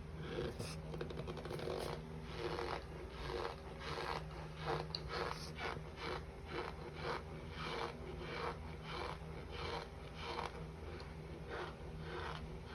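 Mouth chewing a mouthful of raw cornstarch, giving a squeaky crunch with each chew, at a steady rhythm of about two chews a second.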